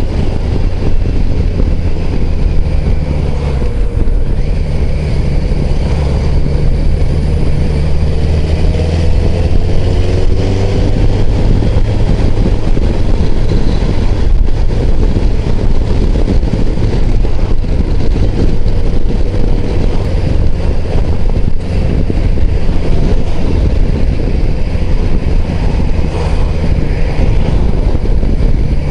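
BMW touring motorcycle's engine running under way in traffic, with heavy wind and road noise over it; the pitch rises briefly about ten seconds in.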